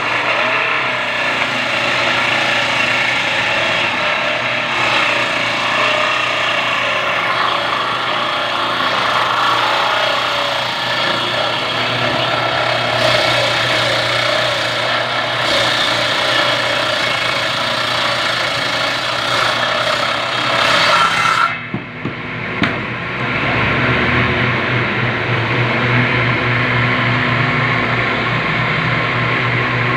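Electric power tool working wood, running steadily. About twenty-two seconds in it dips briefly, then goes on with a deeper hum and less hiss.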